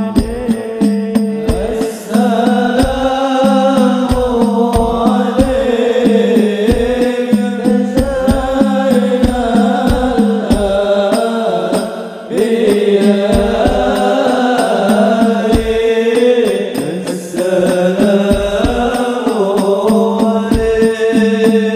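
Sholawat singing, a lead voice with a chorus, over amplified banjari frame drums beating a steady rhythm of about two strokes a second.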